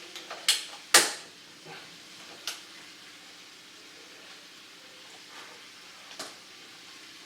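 A few sharp knocks and clicks of hard objects being handled, the loudest about a second in and the last near the end, over a faint steady hum.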